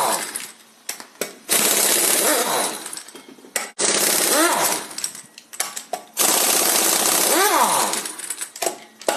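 Impact wrench hammering wheel lug nuts loose: three bursts of about two seconds each, with the pitch rising near the end of each.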